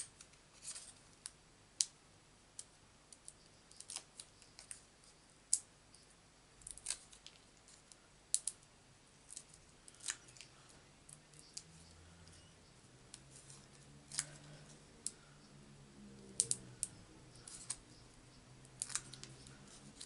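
Small sharp paper clicks and ticks, scattered irregularly, from backing papers being peeled off foam adhesive dimensionals by hand.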